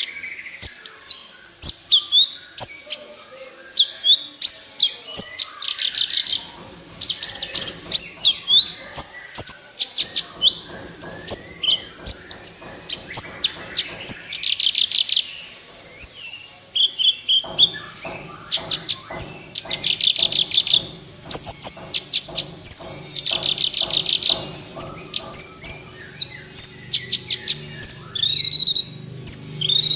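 Kolibri ninja sunbird singing vigorously: rapid, high, sharp chirps with repeated fast trills. From about ten seconds in, a low steady buzz runs underneath and grows stronger after about seventeen seconds.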